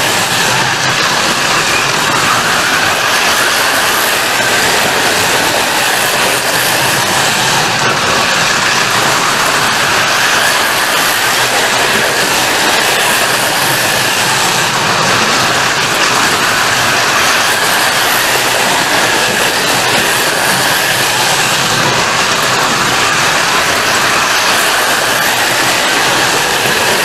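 Several Carrera Go 1/43-scale slot cars lapping the plastic track: a steady, unbroken whir of their small electric motors and wheels running in the slots.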